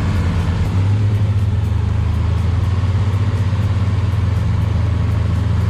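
A heavy machine's diesel engine running steadily at constant speed, with a low, even, fast pulse.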